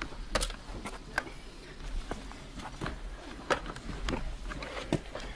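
Irregular knocks, scuffs and rustles of a person clambering and handling gear over cave rock, over a low steady rumble.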